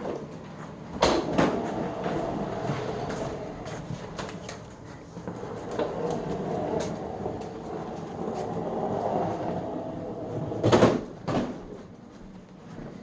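Vacuum cleaner parts (wand, hose and power nozzle) being handled and fitted together: irregular clattering and rustling, with sharp knocks about a second in and again near the end. The vacuum is not running.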